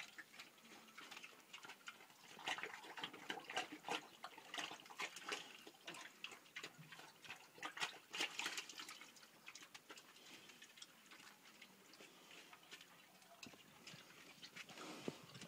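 Domestic pig eating zucchini pieces and wet feed from a trough: irregular chewing and slurping, heard as a stream of wet clicks and smacks.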